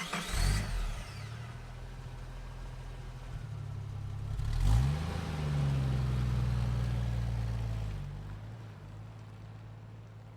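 Car engine starting with a sudden burst and running at a steady low note. About halfway through it revs up and pulls away, holding a higher, louder note, then fades steadily as the car drives off.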